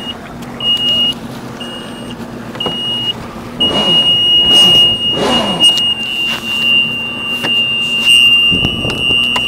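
Jet ski's warning buzzer: a high-pitched beep about once a second, then a continuous tone from about three and a half seconds in, over the engine running low and revving briefly twice. It is taken for an overheat warning, with the jet intake clogged by jellyfish and the ski without power.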